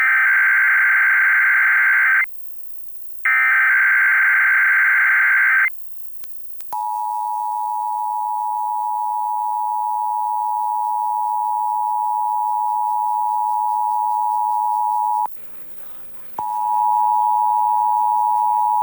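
Emergency Alert System test broadcast on FM radio: two harsh, warbling digital data bursts of the SAME header about a second apart, then the EAS two-tone attention signal, a steady 853/960 Hz dual tone, starting about seven seconds in. The tone drops out for about a second near fifteen seconds and then comes back.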